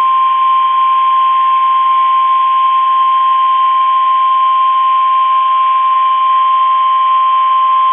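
NOAA Weather Radio's 1050 Hz warning alarm tone: one loud, steady tone over a hiss of radio static. This is the alert that sounds just before a warning is read out.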